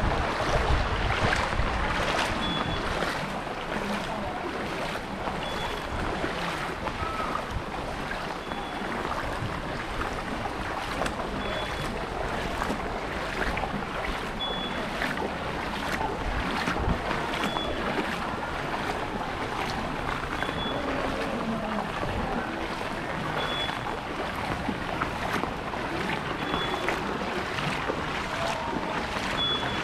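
Footsteps wading through shallow floodwater on a paved street, a steady slosh and splash of water with each step. A faint short high beep repeats about every three seconds.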